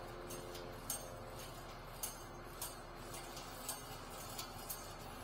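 Faint, light ticks and clicks at irregular intervals, about one or two a second, over a quiet steady hum.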